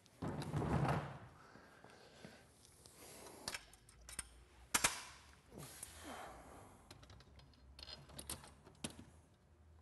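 A vehicle seat being set down and turned over on a folding table, a thump with a rustle about half a second in, then scattered light clicks and a few sharper knocks as its metal mount hardware is handled. The sharpest knock comes about halfway through.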